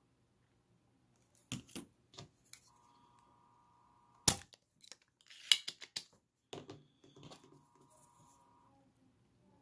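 Spring-loaded solder sucker (desoldering pump) being cocked and fired to pull molten solder off a pin, with a sharp snap about four seconds in as the plunger releases, among smaller clicks and knocks of the tool being handled.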